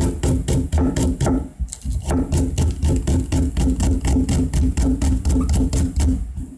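Kitchen knife chopping a green onion into thin rings on a plastic cutting board: quick, even knocks of the blade on the board, about five a second, with a brief pause about a second and a half in and another near the end.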